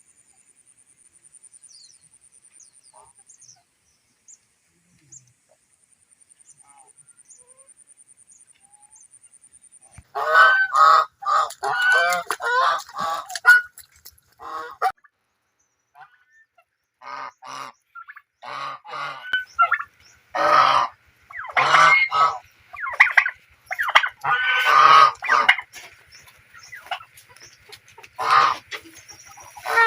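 Geese honking. Only faint clicks for the first ten seconds or so, then a long run of loud, repeated honks in quick bursts that carry on to the end.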